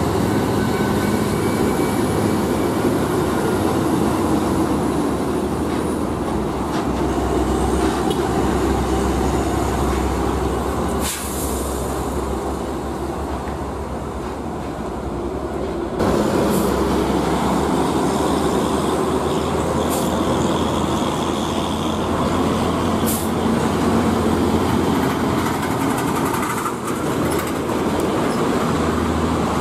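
Heavy diesel trucks running past on a toll road: a steady low engine drone with tyre and traffic noise, a few brief clicks over it. The sound jumps up abruptly just past halfway through.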